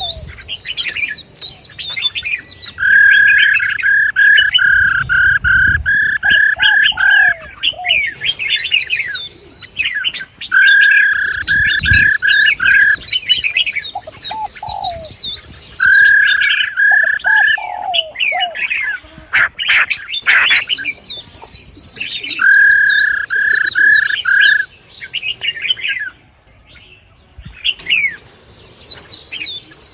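Several songbirds chirping and calling at once: high quick chirps and trills, broken every few seconds by a run of rapid, evenly spaced repeated notes lasting about two seconds.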